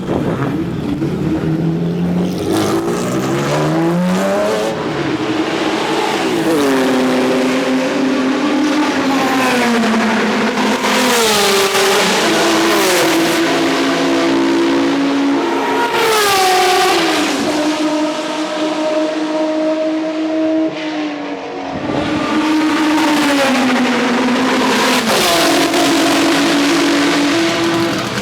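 BMW M1 Procar's straight-six racing engine at high revs, its note climbing and then dropping in steps again and again as it changes gear.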